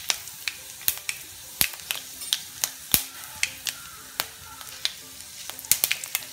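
Tempering in a wok: mustard and fenugreek seeds and dried red chillies frying in hot oil, spluttering with irregular sharp pops over a faint sizzle.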